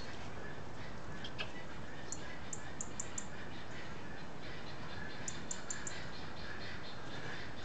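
Birds chirping over a steady outdoor background, with two quick runs of about five short, high-pitched chirps each, the first about two seconds in and the second about five seconds in.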